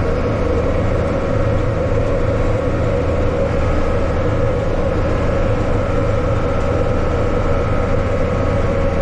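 Yanmar farm tractor's diesel engine running steadily at constant speed, a continuous low drone with a faint steady whine on top.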